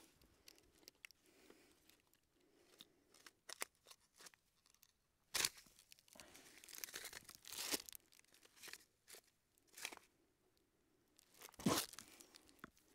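Faint crackling and rustling with a few sharp clicks, a louder one about five seconds in and another near the end, from a pull-string fire starter being set off and handled under a stack of split kindling. The starter does not get the fire going.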